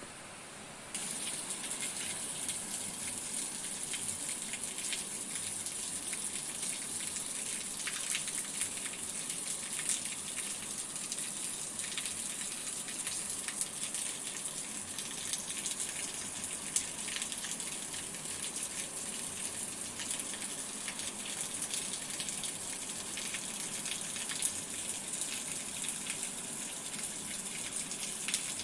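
Steady heavy rain: a dense hiss of falling water full of fine drop patter, with a few louder single drips. It comes in abruptly about a second in, over a softer hiss.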